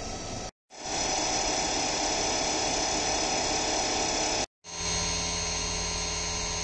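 CNC vertical mill drilling and boring holes in a 6082 aluminium block: the spindle runs and the tool cuts steadily under coolant spray, with a steady high whine. The sound stops suddenly twice, about half a second and four and a half seconds in, as one cutting clip gives way to the next.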